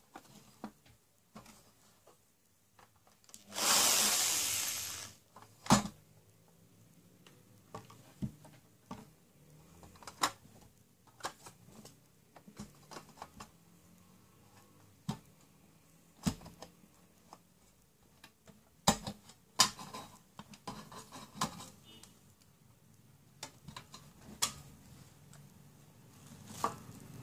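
Metal case of a satellite dish receiver being handled and opened by hand: scattered clicks and knocks of the sheet-metal lid and its screws, with a brief rushing noise about four seconds in.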